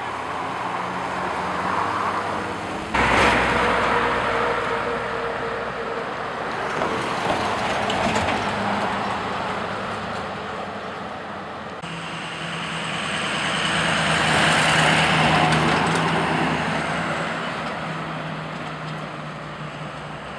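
Heavy motor vehicles running with road noise. One grows louder and fades again in the second half, as if passing.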